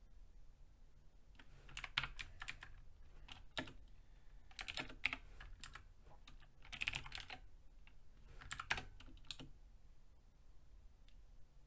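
Typing on a computer keyboard: a few short runs of quick keystrokes with pauses between them.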